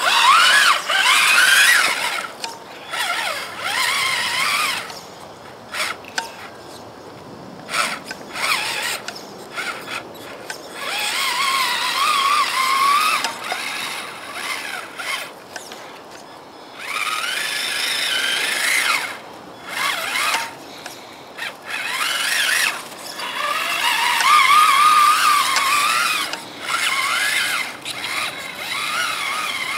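Electric motor and gear drive of an RC rock crawler whining in repeated bursts as it is throttled on and off, the pitch rising and falling with speed.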